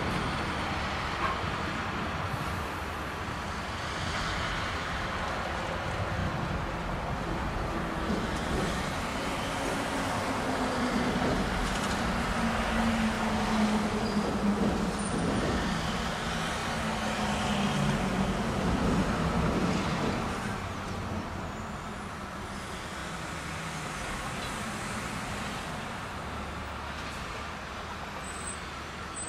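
Diesel locomotive running on the yard tracks, its engine a low drone that swells and then fades as it moves away, over a steady background of traffic noise.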